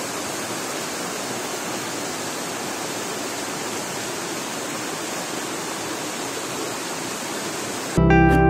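Small waterfall cascading over rocks: a steady, even rush of falling water. Acoustic guitar music comes in abruptly near the end.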